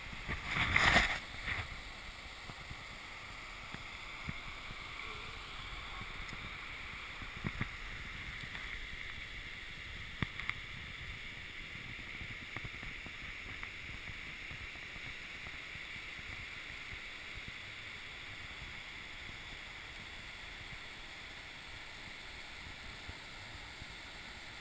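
Steady rush of the Elbow River's open water running over rapids between snow and ice banks, with a brief louder rush about a second in and a few faint knocks.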